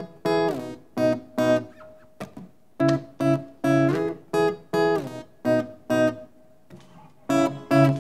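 Outro music: a plucked string instrument strummed in short, stop-start chords, about two a second, with brief pauses about two seconds in and near the end.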